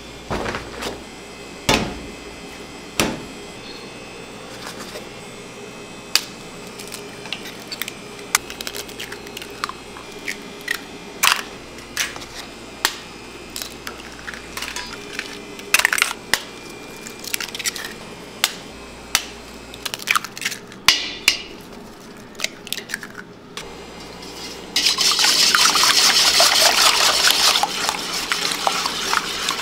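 Food preparation sounds: scattered clicks and knocks of utensils and containers, then about 25 seconds in, a loud steady hiss of something being poured that lasts several seconds.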